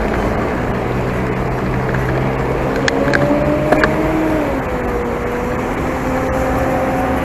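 Wind rushing over the microphone of a bicycle rolling downhill, with the hum of a motor vehicle's engine underneath whose pitch drops about halfway through and then holds steady. A couple of light clicks come near the middle.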